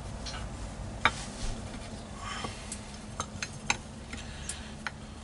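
Small hard plastic clicks and taps from the parts of a dome CCTV camera being handled and fitted together on a wooden board: one sharp click about a second in, then a run of lighter ticks in the second half, over a steady low hum.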